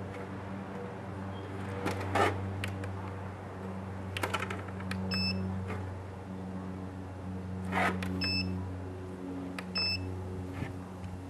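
Turnigy 9X radio transmitter's buzzer giving three short beeps as its menu keys are pressed, about 5, 8 and 10 seconds in, among clicks and knocks of the keys and the handled transmitter. A steady low hum runs underneath.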